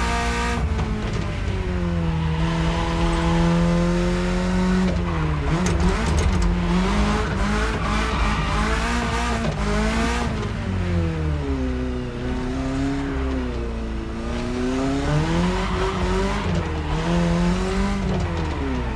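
BMW E30's engine running under way, its pitch rising and falling several times as the car accelerates and lifts off.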